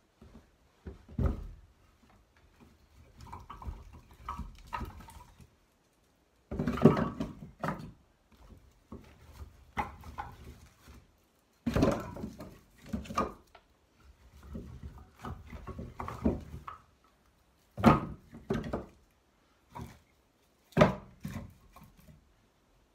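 Split birch firewood being pulled from a canvas log carrier and stacked into a wooden wood box: irregular wooden knocks and clunks as logs land on one another and on the box, about half a dozen of them louder, with quieter scraping between.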